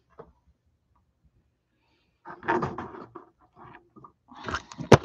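Handling noise on the recording device: a burst of knocks and rustling about two seconds in, a few small taps, then another rustle ending in a sharp click near the end.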